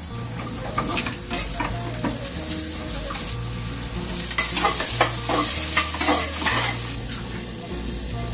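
Leafy greens (saag) frying in hot oil in a pan, with a steady sizzle and repeated stirring and scraping strokes of a spatula against the pan. The strokes and sizzle grow louder about halfway through. The greens are giving off water as they cook.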